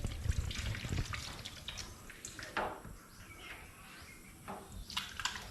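Water splashing and dripping as a whole raw fish is rinsed by hand, in irregular small splashes that are busiest in the first couple of seconds and thin out afterwards.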